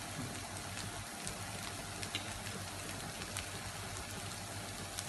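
A steady, crackly hiss with a low hum under it, and a few faint, sharp clinks as a spoon stirs in a small bowl.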